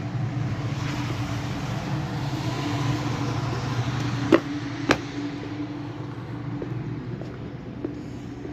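Steady low droning rumble with a held hum, the unexplained noise heard coming from the sky, broken by two sharp clicks about four and five seconds in.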